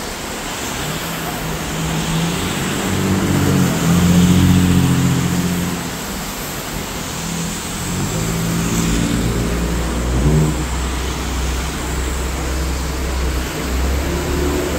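A heavy road vehicle's engine pulling away, its pitch climbing in steps twice, then settling into a low steady rumble.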